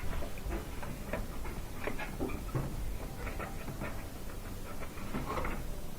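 Faint scratching and clicking from hands working inside a dryer cabinet, tugging at a tight wire connector on the thermal fuse terminal.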